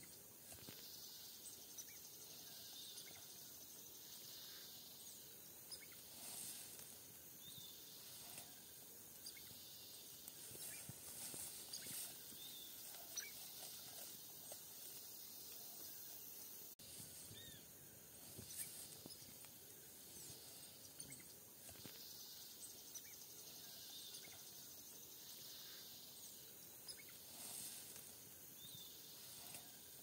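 Faint forest ambience: a steady high hiss of insects with scattered short bird chirps.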